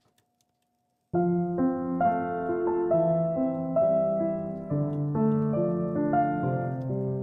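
Background piano music, a gentle melody of separate notes, starting about a second in after a moment of silence.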